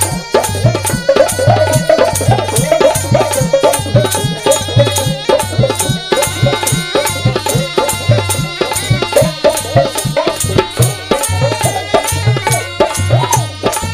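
Mewati folk music: a been, the snake-charmer's gourd pipe, playing a winding lehra melody over a steady drone, with a fast, even hand-drum beat.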